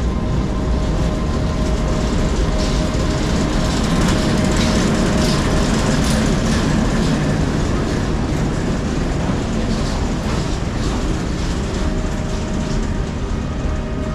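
BR Class 09 diesel-electric shunter D4106 running past at close range with a brake van in tow, its diesel engine giving a steady low rumble. A run of sharp clicks from the wheels on the rail joints comes in the middle.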